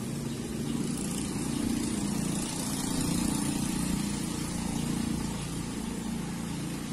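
An engine running steadily as a low hum that swells slightly and eases off.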